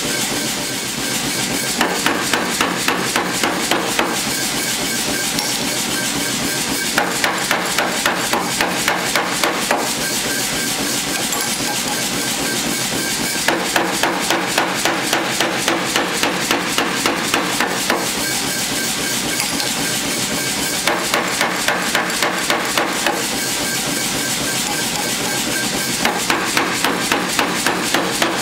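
Power hammer striking a hot high-carbon steel bar, forging out knife stock, in five runs of rapid blows about four a second, with the machine running steadily between the runs.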